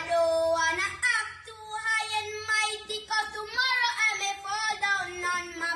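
A high, clear voice singing a wordless or unclear melody, holding and sliding between notes, over faint backing music.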